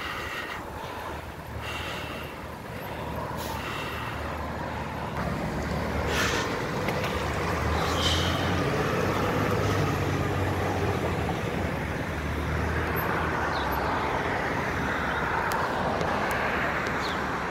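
Fire engine's diesel engine running as the truck drives off, a steady low rumble that grows louder a few seconds in and then holds, mixed with street traffic noise.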